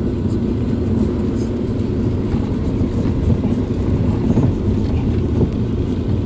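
Car driving over unpaved dirt ground, heard from inside the cabin: a steady low rumble of engine and tyres.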